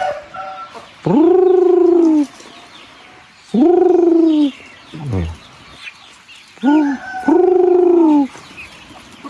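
Rooster crowing three times, each crow a long call that rises then falls in pitch, the last one opening with a short lead-in note. Softer chicken clucks and chick chirps sound between the crows.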